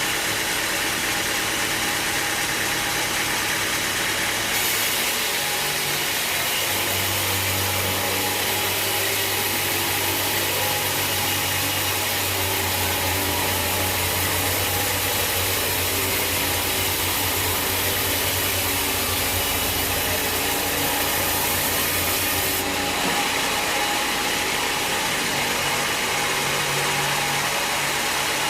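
Sawmill machinery running steadily, an engine-driven mill. Its sound changes a few seconds in, with a deeper hum added, and settles back about five seconds before the end.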